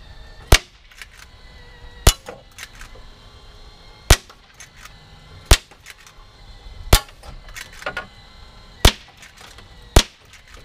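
Walther CO2 lever-action .177 air rifle firing seven sharp shots about one and a half to two seconds apart, with lighter clicks and knocks between the shots.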